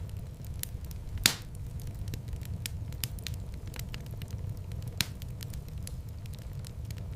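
Wood fire burning in a fireplace: a steady low rumble of flames with frequent sharp crackles. Two louder pops stand out, one about a second in and one about five seconds in.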